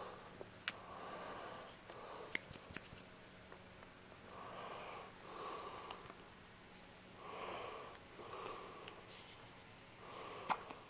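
A baby with hiccups: a few short, sharp hiccups among soft, regular breaths, heard quietly.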